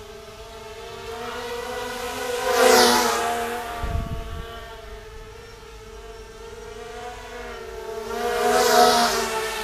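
Electric RC car's motor whining steadily, its pitch slowly rising and falling. It passes close to the ground-level camera twice, about three and nine seconds in, each time with a loud rush of tyres on paving, and there is a low thump about four seconds in.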